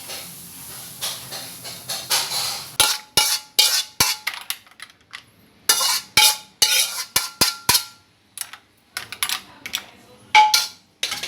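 Kitchen utensils and cookware clattering and clinking: a run of sharp metallic strikes, several ringing briefly, after a hiss in the first couple of seconds.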